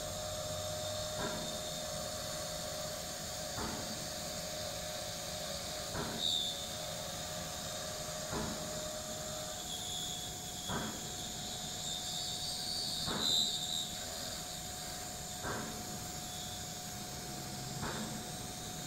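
5-axis CNC machining center's spindle running as it mills a laminated timber beam: a steady high whine over a hiss, with two brief higher squeals and a faint tick about every two and a half seconds.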